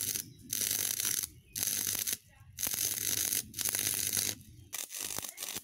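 Stick (arc) welding on steel: the electrode's arc crackling and hissing in runs of about a second, broken by about six short gaps.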